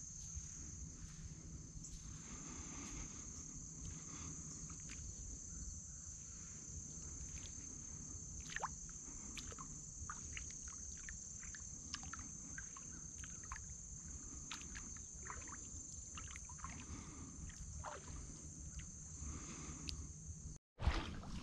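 Steady high-pitched insect drone over a low rumble, with scattered faint clicks and light knocks. Near the end the sound drops out for an instant and a louder rustling burst follows.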